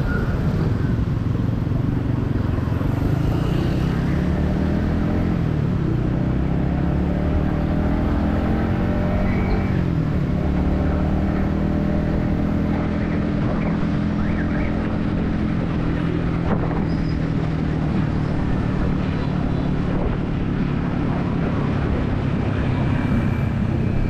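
Yamaha XSR155's single-cylinder engine, heard from the rider's helmet while riding in traffic. Its pitch rises and falls a few times through the first ten seconds as the bike accelerates and eases off, then holds steady at a cruise.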